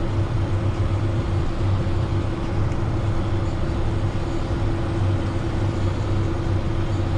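Tractor engine running steadily under load while pulling a grain cart, a low drone with a constant hum above it.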